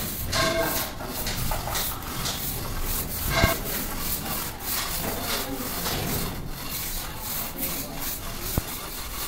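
Mason's trowel scraping along the mortar joints of a freshly laid brick wall in repeated short strokes, striking off the excess mortar.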